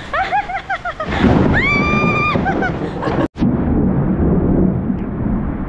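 Heavy rain pouring down, a loud, dense low rush, with a woman's voice calling out twice in the first couple of seconds. The sound cuts out for an instant about three seconds in, then the rain noise carries on.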